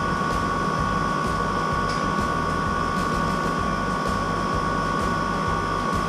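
Steady drone of running machinery, with a constant high whine over it.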